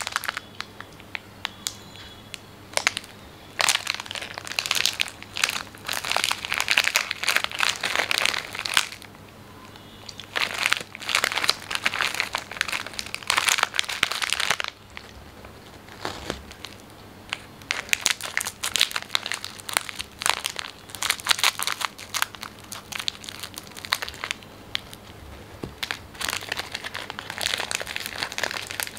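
Plastic biscuit wrapper crinkling and rustling in the hands in bursts with short pauses, as the packet is worked at its sealed end and pulled open.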